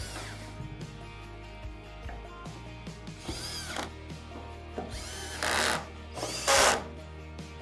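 Cordless drills tightening the grub screws that clamp a glass balustrade panel in its spigots, in three short bursts that each spin up and wind down, the last two louder; the drills are set on a low clutch setting so as not to crack the glass. Background music runs underneath.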